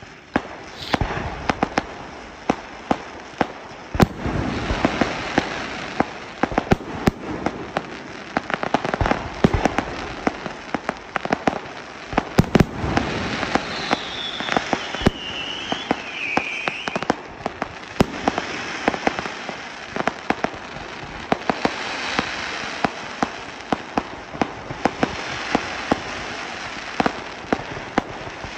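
Firework display at full pace: multi-shot cakes and shells firing rapid sharp reports over a continuous crackle. A few short descending whistles come about halfway through.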